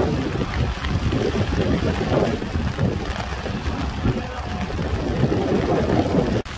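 Wind buffeting the microphone: an uneven, gusting low rumble, with a brief dropout just before the end.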